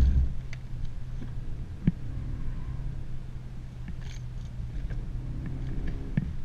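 Renault Mégane RS 275's turbocharged 2.0-litre four-cylinder engine and road noise droning steadily inside the cabin, with a couple of sharp knocks, one about two seconds in and one near the end.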